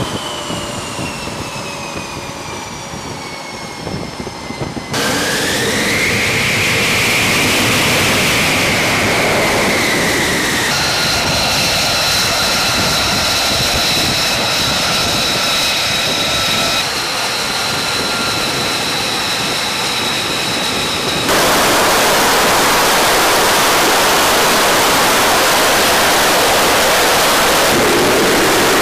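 F-35C fighter's Pratt & Whitney F135 jet engine on a carrier deck, heard as a whine that falls, then rises and falls, then holds steady across several abrupt cuts. About two-thirds of the way in it gives way to a loud, even roar of the engine at full power before catapult launch.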